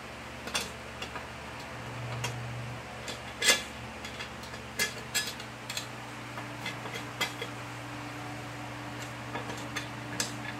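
Metal tools and small parts clinking and tapping at irregular moments during hand work on a mower engine, the loudest knock about three and a half seconds in, over a steady low hum.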